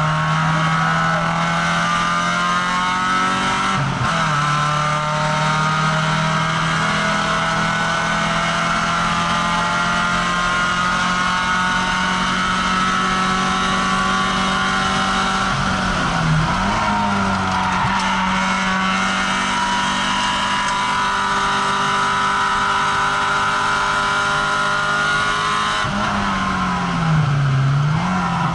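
Citroën ZX Dakar's engine heard from inside the cabin, running hard on track with its note slowly climbing under acceleration. The pitch dips and recovers briefly three times, at about 4 seconds, 16 seconds and 27 seconds.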